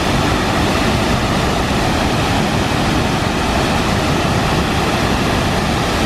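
Large waterfall on the Brule River pouring down into a rocky gorge: a steady, loud rush of falling water.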